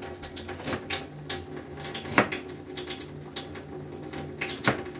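Water running from a kitchen tap, with a few sharp knocks of dishes or utensils in the sink, the loudest about two seconds in.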